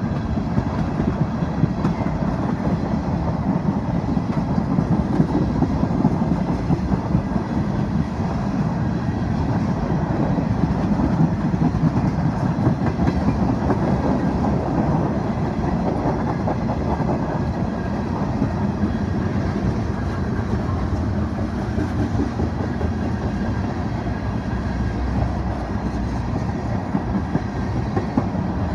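Freight train cars rolling past: a steady rumble of steel wheels on rail with rapid clicking and rattling.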